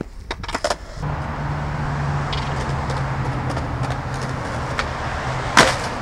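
Skateboard wheels rolling on concrete, a steady rumble with a low hum. Near the end a single sharp crack stands out, as the board hits the ground and the skater falls beside it.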